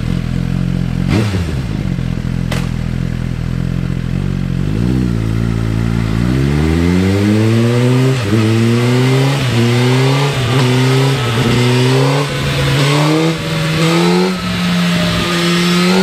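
Suzuki GSX-R 1000's inline-four sportbike engine, breathing through its stock header, catalytic converter and Yoshimura slip-on, idles steadily on a dyno. About six seconds in it revs up in a run of rising sweeps, each broken by a short dip in pitch, and settles at a steady higher speed near the end.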